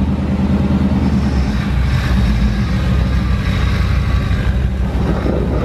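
1988 Chevrolet Silverado pickup's engine idling with a steady low rumble, the engine still cold.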